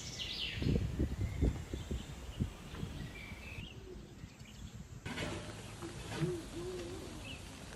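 Outdoor ambience with small birds chirping in short high calls, and low rumbling thumps on the microphone in the first couple of seconds.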